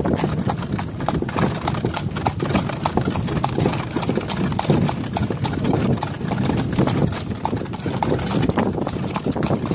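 A horse's shod hooves clip-clopping on a paved road in a quick steady rhythm as it pulls a cart, over a steady low rumble.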